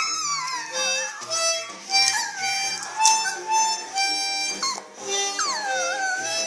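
Harmonica playing a tune in held notes while a dog howls along to it. There are long falling howls at the start and again twice from about five seconds in.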